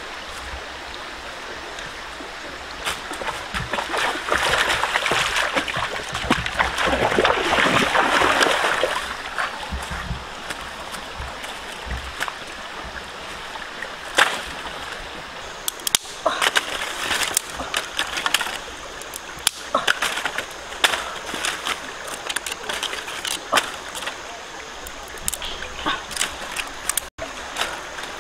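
A shallow rocky stream runs steadily, with a spell of splashing water from about four to nine seconds in, as feet wade through it. From about fourteen seconds in, dry wooden sticks clatter and knock against stones as they are dropped and laid out, in many short sharp clicks.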